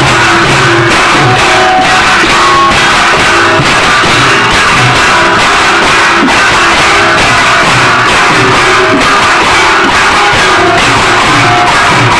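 Loud traditional Odia folk music with singing, played continuously for a dance, with crowd voices mixed in.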